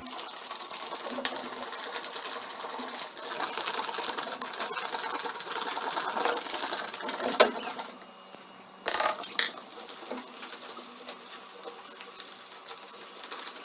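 Spoon stirring a sticky slime mix of glue, food colouring and shaving cream in a bowl: rapid scraping and tapping against the bowl for about eight seconds, then quieter, with a short loud noise about nine seconds in.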